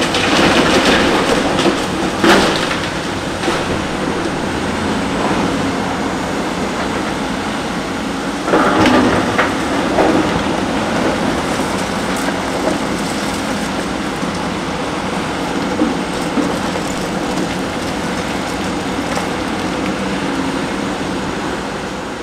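Large hydraulic excavator at demolition work: a steady diesel engine, with crunching and crashing of broken concrete and rubble. The loudest crashes come right at the start, about two seconds in, and again around nine to ten seconds in.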